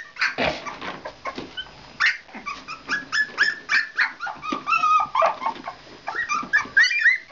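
A litter of Keeshond puppies yelping and whining together: many short, high-pitched cries that overlap, the pups crying for their absent mother.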